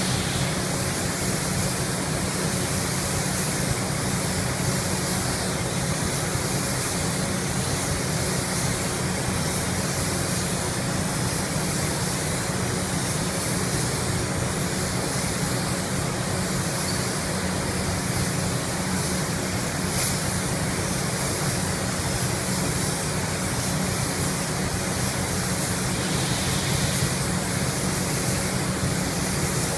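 Steady rushing hiss of compressed-air spray painting in a paint booth: the spray gun's air jet together with the booth's ventilation, running without a break at an even level.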